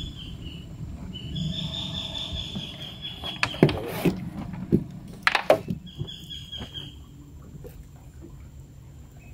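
Insects buzzing in the mangroves in high-pitched stretches of a second or two, over a low steady rumble. Several sharp knocks and clatters come between about three and six seconds in.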